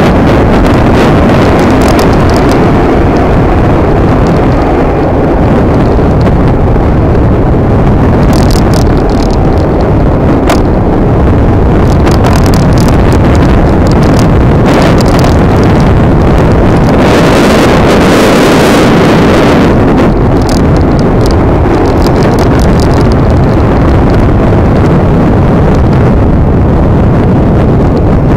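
Loud, steady wind rushing over the microphone of a rider on a moving electric scooter, with the ride's road noise underneath and no clear motor tone.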